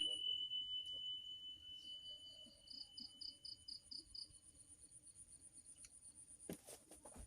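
Insects trilling and chirping: a fast, high, continuous trill with a row of chirps about four a second in the middle, and a steady high whine that fades out about five seconds in. A brief knock near the end.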